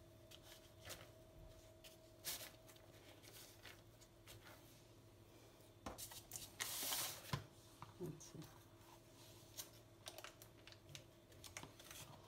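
Baking paper crinkling and rustling as pastry dough is peeled off it, with soft taps of hands on the wooden board and one louder rustle of about a second near the middle. A faint steady hum runs underneath.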